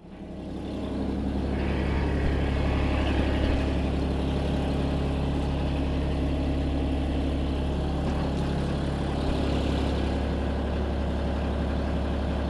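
Eagle ETB90 tire baler's power unit running steadily, a constant low hum that fades in over about the first second.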